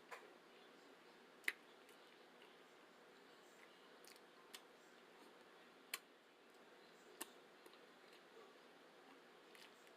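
Quiet eating sounds: a handful of short, sharp clicks over near silence, the loudest about a second and a half in.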